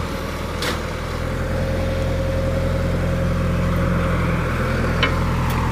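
A vehicle's engine running steadily at low speed, with two short clicks, one under a second in and one near the end.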